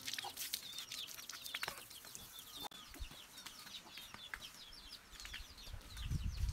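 Chickens calling: a quick run of short, high, falling peeps. A low rumble comes in near the end.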